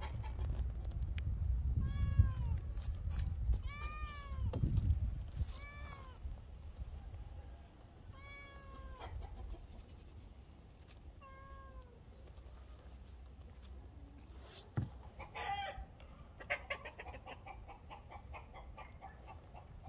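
A cat meowing again and again, about five drawn-out meows in the first twelve seconds, then a chicken clucking in a quick run near the end.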